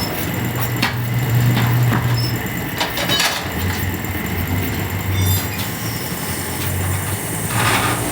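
A motor vehicle's engine running, its low hum shifting in pitch, with a few scattered clicks and knocks.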